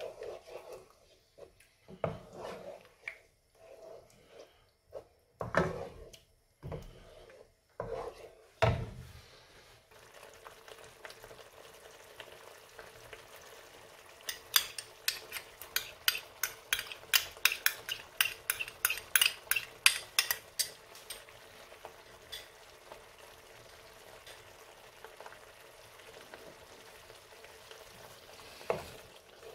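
Wooden spoon scraping and stirring thick tomato and chilli sauce in a nonstick pan, in irregular strokes with a few knocks against the pan. After about ten seconds the spoon stops, the sauce simmers with a steady sizzle, and for several seconds it pops and spits rapidly.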